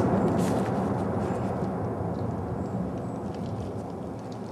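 Low rumble of an exploding target's blast dying away, fading steadily. There is a sharp crack at the very start and another about half a second in.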